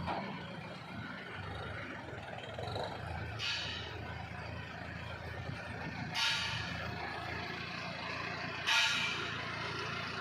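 Mahindra 605 tractor's diesel engine running steadily, with three short higher-pitched sounds, about three and a half, six and eight and a half seconds in.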